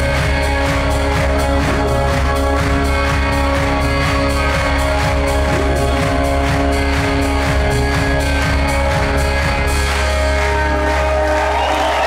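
Live rock band with electric guitars and a full drum kit playing the closing bars of a song, heard as a loud concert mix. The drums stop about ten seconds in, the last chord rings on, and crowd cheering and applause swell near the end.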